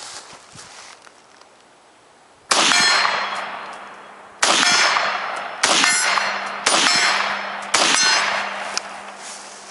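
Five semi-automatic rifle shots fired at a steady, unhurried pace, each cracking sharply and ringing out in a long echo.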